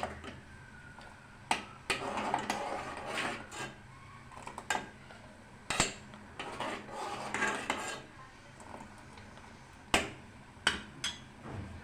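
A spoon knocking, clinking and scraping against a cooking pot at irregular intervals while the boiling kadha is stirred, over a low steady hum.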